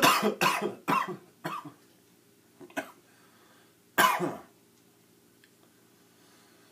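A person coughing: a quick fit of four or five harsh coughs, then one more cough about four seconds in.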